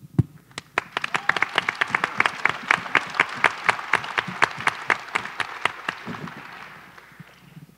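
Audience applauding, with distinct sharp claps standing out over the crowd's clapping; it starts at once, holds, then thins out and fades near the end.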